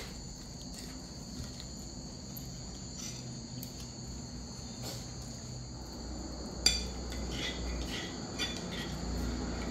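Insects chirping in a steady high chorus, with a single sharp clink of tableware about two-thirds of the way through and a few lighter clicks after it.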